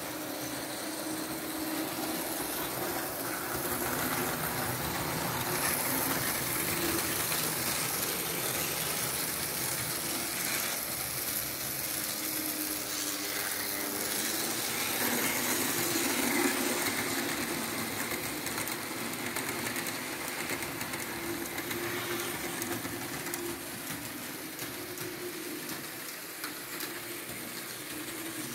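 Märklin H0 model V 200 diesel locomotive running on the layout with its express coaches: steady hum of the electric motor and rattle of wheels on the three-rail track, a little louder about halfway through.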